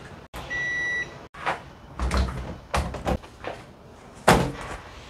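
A single short electronic beep from an appliance about half a second in, followed by several separate knocks and clunks.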